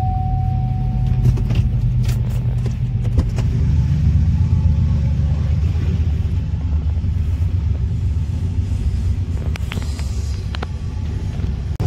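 Low, steady rumble of a diesel-led double-stack intermodal freight train rolling past, heard from inside a parked car, with a few sharp clanks a couple of seconds in and again near the end.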